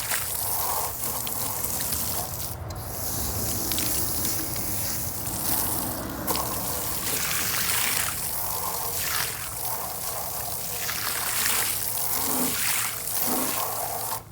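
Water running and splashing in a livestock water bucket as it is rinsed out, the rush rising and falling, then cutting off suddenly at the end.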